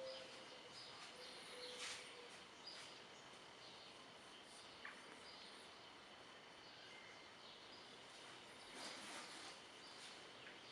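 Near silence: faint outdoor ambience with scattered short bird chirps and a faint steady high tone.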